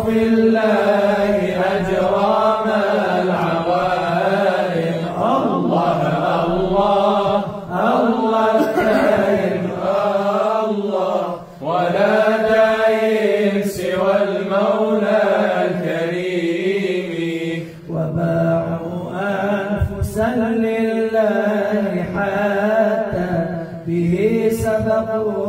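A male voice chanting an Arabic Sufi qasida in long, drawn-out melismatic phrases over a steady low drone.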